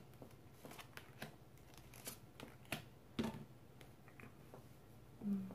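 Tarot cards being taken from the deck and laid on the table: a series of faint, irregular card clicks and slides, with a short low sound near the end.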